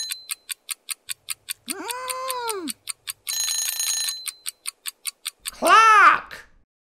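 Cartoon clock sound effects: rapid, even ticking, with a short alarm-clock ring about three seconds in. Over it come two pitched cartoon voice sounds that rise and fall, the louder one near the end.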